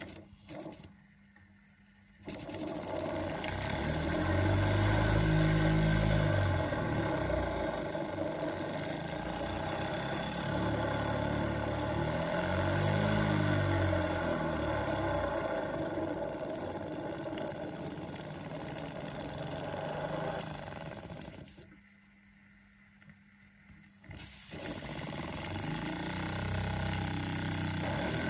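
Model steam engine running with a hiss, its speed rising and falling several times. It stops about twenty seconds in and starts again a few seconds later.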